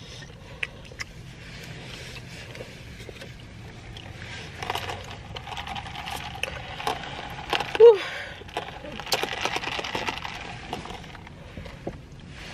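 Chewing a sandwich, then a plastic fast-food cup of lemonade being handled: ice and the straw rattling and rubbing in the lid, with one short, loud squeak of the straw through the lid about eight seconds in.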